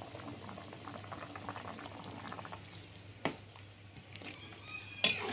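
Soup broth bubbling at a rolling boil in a metal wok, with a metal ladle stirring it. Two sharp knocks of the ladle against the pan, about three seconds in and near the end, the second louder.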